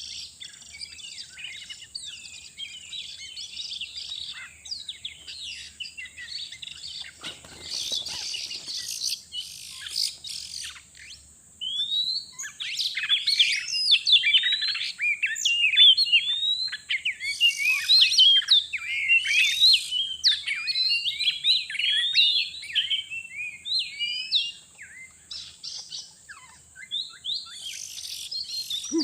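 Oriental magpie-robin (kacer) singing: a fast, varied run of whistles and chirps that grows louder about twelve seconds in. A steady high hiss runs underneath.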